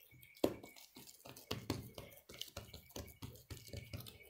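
Fingers patting and pressing a soft, sticky ball of yeast dough flat on a silicone baking mat: a quick, irregular run of light taps, the sharpest about half a second in.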